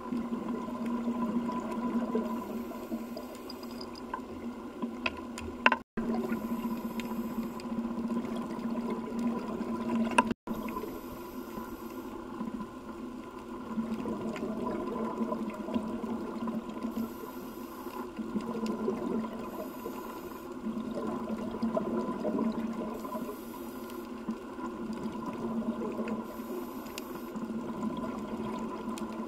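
Underwater ambience of scuba diving: regulator breathing and rushing exhaust bubbles, with a steady hum underneath. The sound cuts out briefly twice, about six and ten seconds in.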